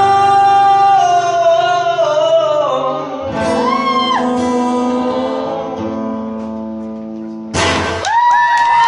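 Male voice singing long held and sliding notes over strummed acoustic guitar, the chord ringing out and fading as the song ends. Near the end the audience starts cheering.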